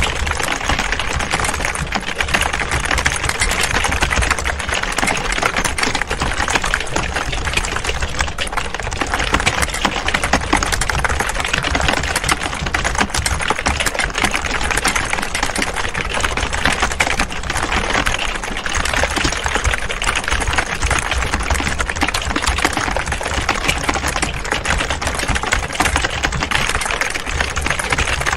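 Many computer keyboards being typed on at once, a dense, unbroken clatter of overlapping keystrokes, with a steady low hum underneath.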